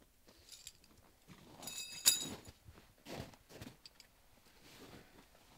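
Boots crunching on packed snow and gear being handled while a teepee tent is pitched, in scattered short crunches. A single sharp clink about two seconds in is the loudest sound.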